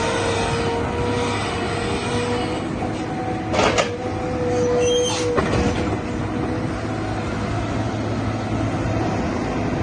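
Case 988 CK Plus tracked excavator running, with a steady whine over the machine noise. Two short, sharp metallic squeals or clanks come about three and a half and five seconds in.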